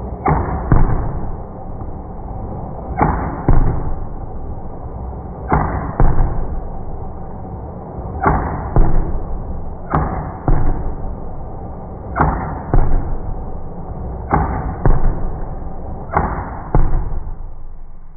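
Toy foam-dart blaster being worked over and over: a pair of sharp clacks about half a second apart every two to three seconds, eight times.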